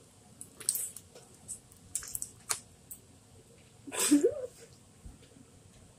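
Slime being squished and worked by hand: scattered short wet clicks and pops, with a louder squelch and a brief rising squeak about four seconds in.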